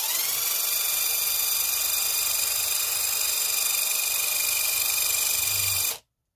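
Cordless impact driver running at full speed, spinning a socket against a rag held in a vise. Its motor whine rises over the first half second, holds steady, then cuts off suddenly near the end.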